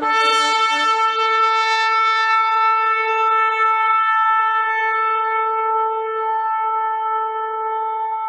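Shofar (ram's horn) sounded in one long, unbroken blast: a brief lower note at the attack that jumps up to a bright, held tone, slowly fading near the end.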